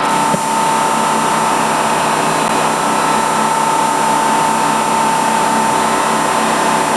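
Boat engine running steadily: a constant drone with an unchanging whine.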